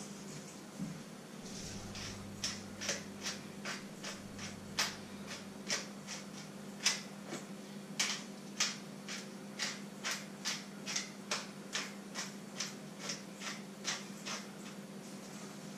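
Hand-twisted spice mill being turned over a pot, giving a run of short crisp clicks about two to three a second, over a low steady hum.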